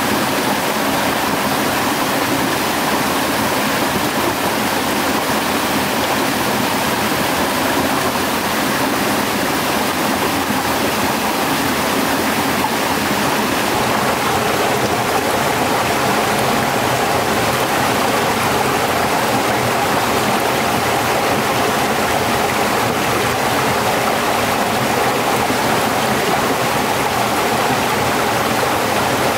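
Stream water rushing over rocks: a loud, steady rush with no breaks.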